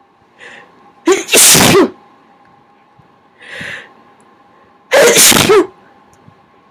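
Two big, wet human sneezes, about a second and five seconds in, each preceded by a short, quieter inhale. They are induced sneezes, set off with a rolled-up piece of paper towel in the nose.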